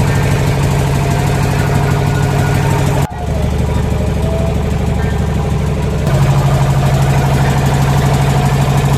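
Small tourist boat's engine running steadily with a fast pulsing beat, broken briefly about three seconds in and running louder from about six seconds.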